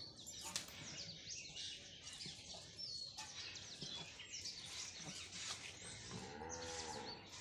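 Small birds chirping and twittering, many short high calls. About six seconds in, a lower drawn-out call rises and falls for about a second.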